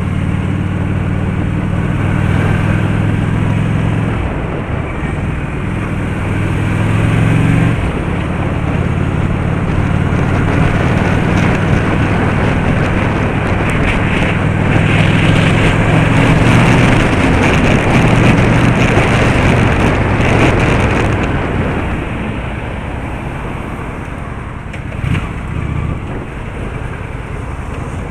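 A car on the move: a steady engine hum with road and tyre noise. The road noise grows louder for several seconds in the middle and eases off near the end.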